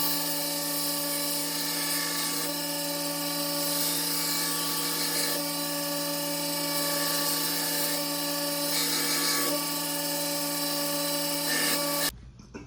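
Belt grinder running steadily, its motor whine over the hiss of a coarse 50-grit belt grinding the edge bevel of a forged chef knife blade. It cuts off abruptly near the end.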